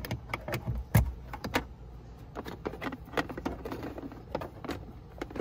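A portable tow brake unit's power cord and plug being handled and plugged into a car's power socket: a string of small clicks and rattles, with one sharp knock about a second in.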